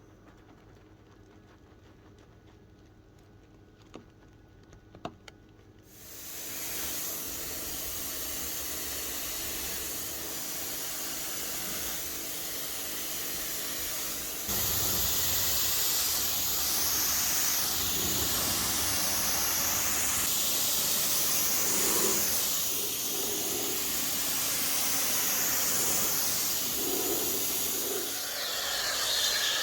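A few light clicks, then about six seconds in a pressure washer's spray starts with a steady hiss against the car. It gets louder about halfway through and keeps going to the end.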